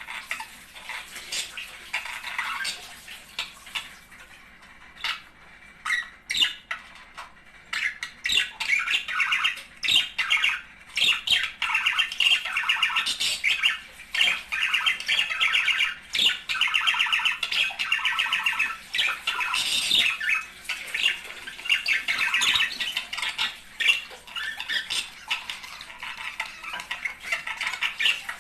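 A pair of budgerigars chattering and warbling, with squawks and clicks mixed in. The calls are sparse at first, then run almost unbroken from about eight seconds in.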